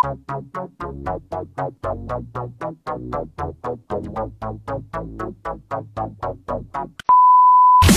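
A keyboard or synth melody of short plucked notes that die away quickly, about four a second. Near the end it gives way to a loud, steady high-pitched beep.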